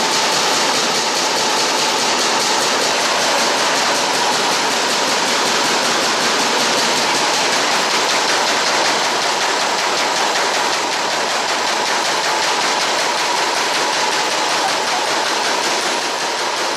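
Automatic paper roll-to-sheet cutting machine (sheeter) running at high speed, about 317 sheets a minute at 190 m/min: a loud, steady, hissing mechanical clatter with a faint whine.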